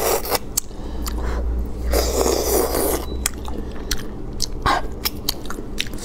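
Close-miked biting and chewing on a piece of braised anglerfish (monkfish): sharp crunchy clicks scattered throughout, with a longer noisy stretch about two seconds in.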